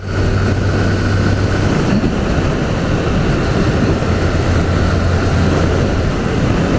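Wind rushing over a helmet-mounted microphone on a moving motorcycle, over the steady low drone of a Honda CG 160 Fan's single-cylinder engine.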